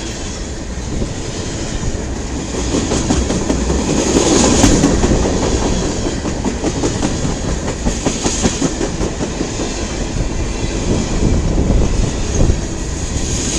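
CN mixed freight train's cars rolling past, their wheels clacking steadily over the rail joints, a little louder about four seconds in.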